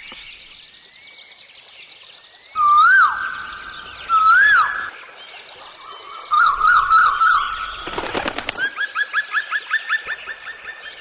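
Several birds calling and singing. There are two loud whistled notes that rise and fall, then a warbling trill, a brief rattling burst about eight seconds in, and then a fast run of repeated chirps, over fainter high-pitched calls.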